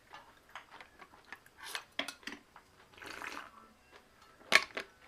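Eating and drinking at a table: chewing, small clicks of chopsticks against dishes, and a drink from a ceramic bowl. About four and a half seconds in there is one sharp knock, the loudest sound, as the bowl goes down on the table.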